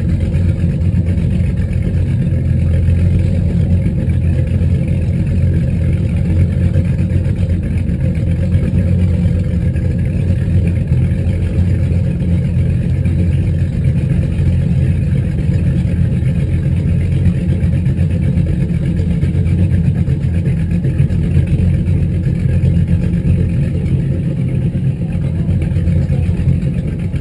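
Twin inboard engines of a 1998 Sea Ray 330 Sundancer cruiser idling in gear at dead slow: a steady, low drone.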